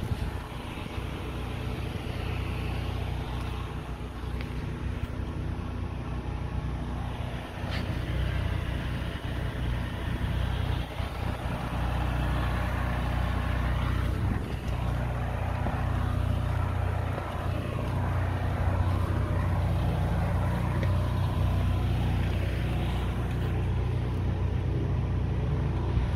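An engine running steadily with a low hum, under a rushing noise that swells a little partway through.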